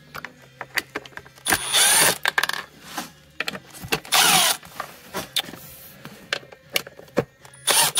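Cordless drill/driver spinning a T25 Torx bit to back screws out of a plastic snowmobile intake box. It runs in three short whirring bursts with small clicks of the bit and screws in between.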